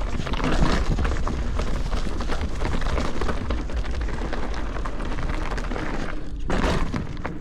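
Mountain bike rolling down a steep, rough dirt trail: tyres on dirt and rock and the bike rattling in many small knocks, with wind rumbling on the microphone. A louder rush of noise about six and a half seconds in.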